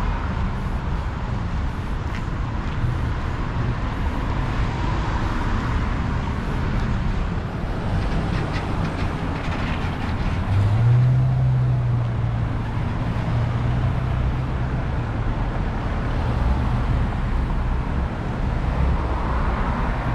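Street traffic noise, vehicles passing close by. About halfway through, a heavy vehicle's engine note rises and then holds steady as it goes by.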